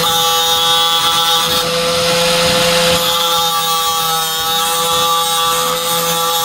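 Angle grinder running at speed with a steady whine, its disc grinding against the cutter teeth of a chainsaw chain to sharpen them, with a harsher grinding hiss about a second and a half in.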